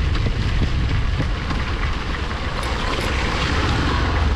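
Motorcycle riding on a rain-soaked road, heard through a waterproof-housed action camera: a steady rush of wind and road noise with the bike's engine underneath.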